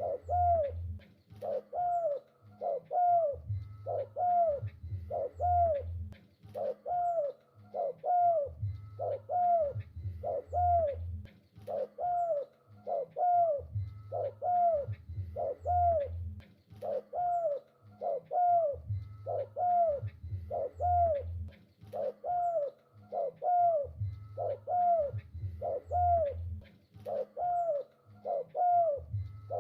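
Spotted dove cooing over and over, with phrases of a few low, hollow notes, each rising then falling in pitch, about one note every 0.7 s, with short pauses between phrases.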